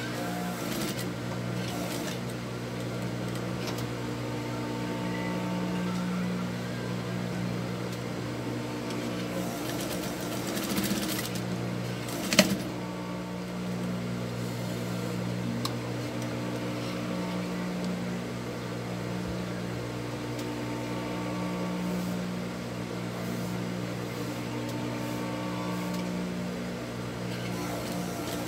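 Sewing machine stitching binding around the edge of a quilted pot holder, its motor humming steadily and the stitching swelling and easing in long runs. A single sharp click about twelve seconds in is the loudest sound.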